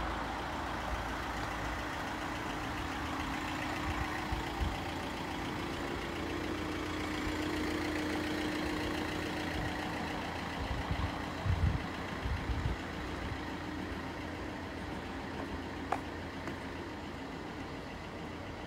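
Street traffic ambience: a motor vehicle engine running steadily nearby, with a steady hum, and a few low thumps around the middle.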